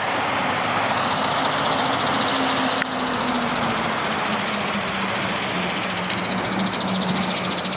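A steady motor-like hum over a rushing hiss, the hum dropping slightly in pitch about three and a half seconds in, with a single short click a little before that.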